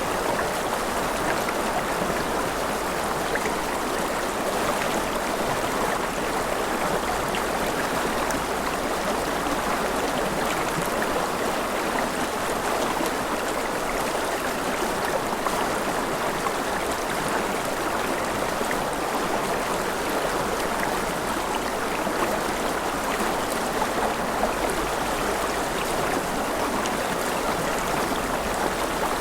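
Forest river flowing steadily over stones, a continuous rushing babble with small splashes.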